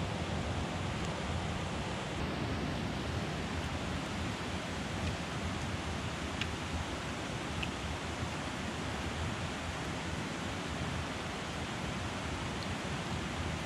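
Steady rain falling on the forest, an even hiss with a few faint clicks.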